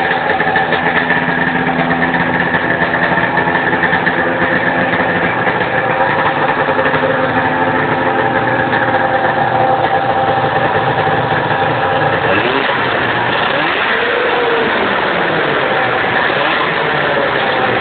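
1995 Arctic Cat Cougar 550 snowmobile's two-stroke twin engine running steadily at low revs; about two-thirds of the way through the revs rise and fall back once before it settles again.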